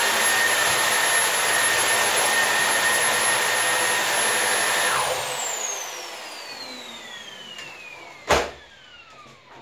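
Hoover Air Lite vacuum cleaner running with its brush roll on, with a steady high whine over a loud rush of air. About five seconds in it is switched off and the motor spins down with a falling whine. A sharp knock comes near the end.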